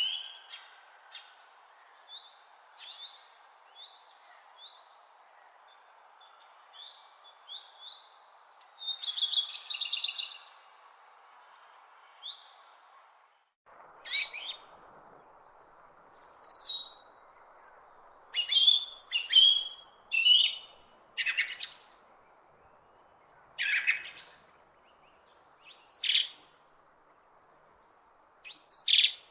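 Wild birds singing and chirping: many quick short chirps over a faint steady hiss. About 13 seconds in, the sound cuts abruptly to louder, sharper calls, many sliding down in pitch, over a stronger hiss.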